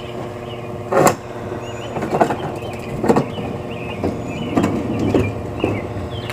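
Plastic wheels of a toy ride-on car rolling and knocking on a plastic roller-coaster track as it is pushed uphill, several short knocks, over a steady mechanical hum.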